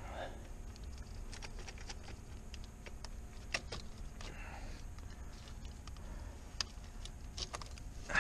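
Scattered light clicks and clinks of small car parts being handled, with a soft rustle now and then over a low steady hum; a louder clunk comes right at the end.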